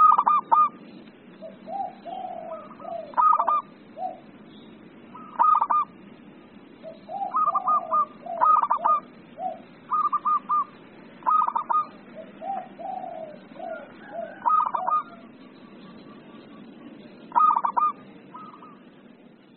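Zebra dove calling excitedly: repeated bursts of three or four quick cooing notes, with lower notes in between, over a steady low background noise. The calls stop shortly before the end.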